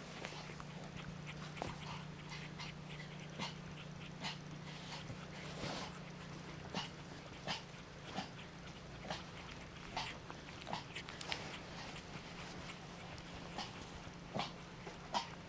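Mixed-breed puppy's small sounds: irregular short clicks and taps, about one or two a second, over a steady low hum.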